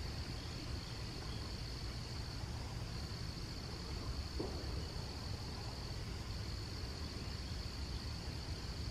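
Late-summer insect chorus: a steady, high-pitched drone that holds one pitch without a break, over a low steady rumble.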